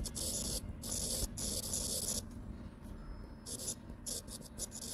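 Stylus scratching across a Samsung Galaxy Note10 touchscreen as words are handwritten. A run of scratchy pen strokes lasts about two seconds, followed by a lull, then a few short quick strokes near the end.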